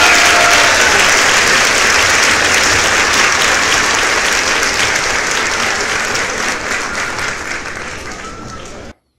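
Applause: dense, steady clapping that fades out over the last few seconds and stops about nine seconds in.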